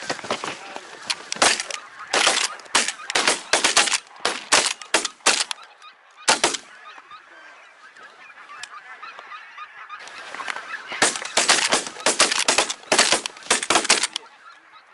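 A flock of wild geese honking, many loud calls in quick succession, dying down to faint chatter for a few seconds in the middle before a second burst of calling.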